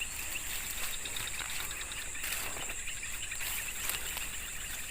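Steady high-pitched insect chorus, an even drone with no breaks.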